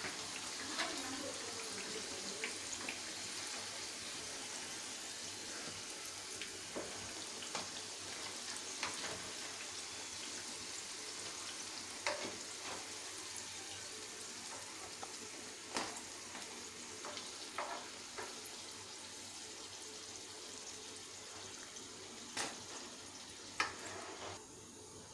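Hot oil sizzling steadily as wheat-flour and maida dough snacks deep-fry, with scattered sharp clicks and pops. The sizzle slowly fades and drops away about a second before the end.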